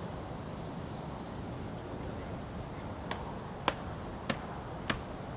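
Four sharp hammer taps about half a second apart, struck on a hollow log, over a steady low hiss.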